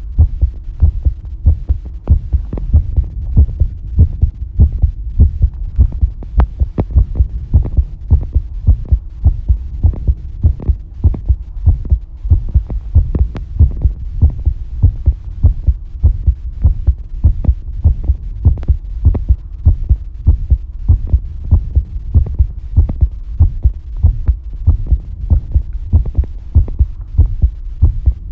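Human heartbeat heard close up: a steady, regular run of low, dull thumps. A faint steady hum lies underneath.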